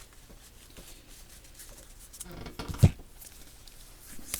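Soft rustling and light ticks of trading cards and packs being handled, with one dull thump a little past halfway.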